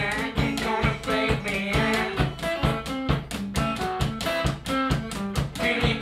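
One-man-band blues-punk music: a guitar played over a steady drum beat of about four to five strokes a second, with singing.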